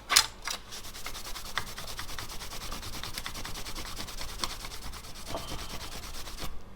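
Cloth rubbed briskly back and forth over a stainless steel plate set with brake-pipe rivet eyelets, making a fast, even scratching. A sharp knock comes right at the start, and the rubbing stops abruptly near the end.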